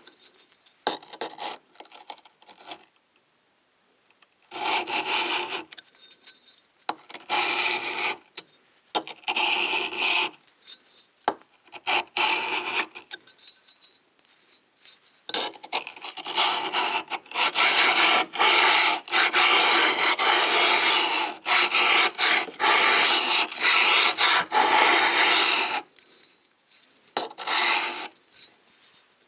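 Edge of a Bull Thistle ruby-abrasive sharpening stone being abraded in gritty rasping strokes. First come a few separate strokes of about a second each, then about ten seconds of rapid back-and-forth scraping, and one more short stroke near the end.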